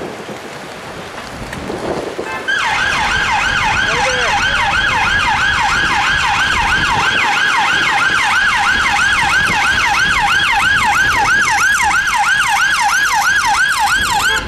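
Police siren on the escort convoy, sounding a fast yelp that sweeps up and down about three times a second. It starts abruptly about two and a half seconds in over street traffic noise and cuts off suddenly at the end.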